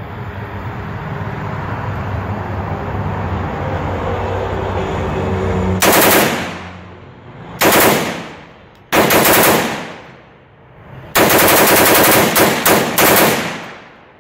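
A 7.62x39 AR-15 rifle firing quick strings of shots: the first string comes about six seconds in, and three more follow over the next seven seconds, the last the longest. Each string trails off in echo. A low rumble builds under the first six seconds, before the shooting starts.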